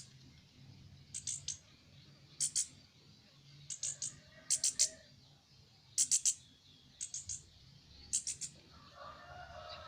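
A young orange-headed thrush chirping: short, high chips in quick clusters of two to four, repeating about once a second, over a faint low steady hum.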